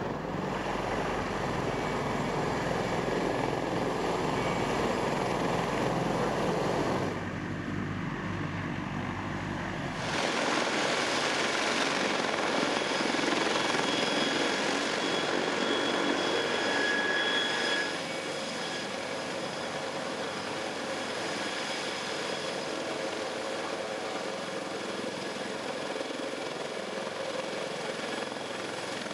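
Sikorsky CH-53K King Stallion heavy-lift helicopter running on the ground with its rotors turning: its three turboshaft engines and rotor make a dense, steady noise with a high whine over it. The sound shifts abruptly in level and tone a few times, about a quarter of the way in, about a third of the way in, and a little past halfway.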